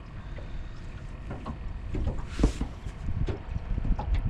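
Low rumble of wind on the microphone with small knocks and handling noises in a boat. About two and a half seconds in comes one short hissing rush, the loudest sound.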